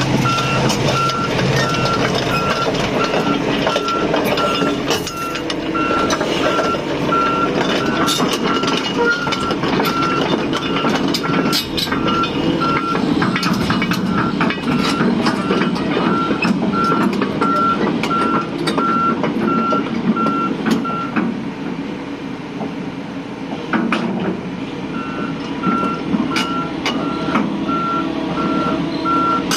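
Volvo crawler excavator's diesel engine running with its travel alarm beeping steadily, a single-pitch beep repeating about twice a second. The beeping stops about two-thirds of the way through and starts again a few seconds later, with scattered sharp knocks.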